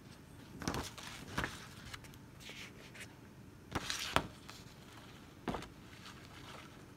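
Handling noise from the stackable cube organiser's panels and paper instruction sheet as they are moved about: a few short knocks and clatters, the loudest pair close together about four seconds in, with a softer rustle between.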